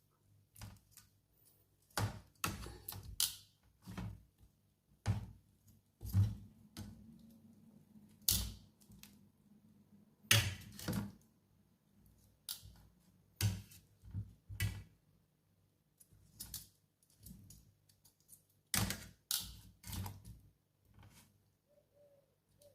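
Irregular clicks and knocks of a cooking utensil against the grill as pieces of pork are turned over.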